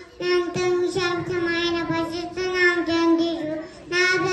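A small girl singing into a handheld microphone, holding long steady notes with short pauses between phrases.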